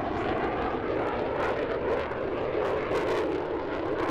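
Turkish Air Force F-16C fighter jet in display flight: steady, loud jet engine noise with repeated sharp crackles through it.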